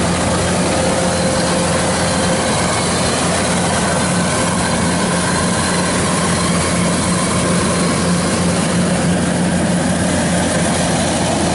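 Kubota DC-93 rice combine harvester's diesel engine and threshing gear running steadily while it harvests rice.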